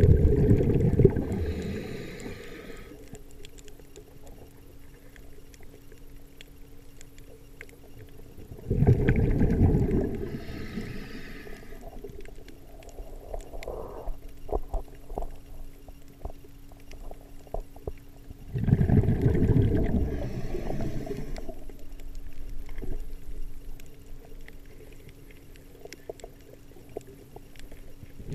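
Underwater sound of a scuba diver's exhaled breath bubbling out of the regulator, three bursts about ten seconds apart. Between the breaths there is a faint steady hum and a scatter of small clicks.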